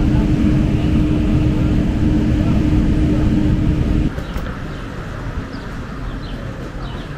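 Steady cabin noise of an airliner in flight: engine and airflow noise with a steady low hum. About four seconds in it cuts abruptly to a quieter outdoor ambience.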